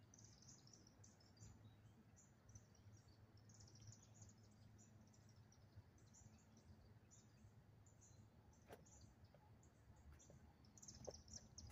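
Near silence at dusk, with faint, high, irregular chirping of small wildlife throughout and a single faint click about nine seconds in.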